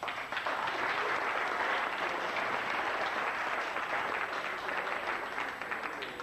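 Audience applauding, a dense even clapping that starts suddenly and thins out near the end.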